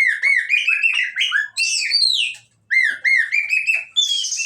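Female oriental magpie-robin (kacer) singing cindilan: fast runs of short, down-slurred whistled notes, in two phrases with a short pause between them. The second phrase ends in a harsh, raspy note.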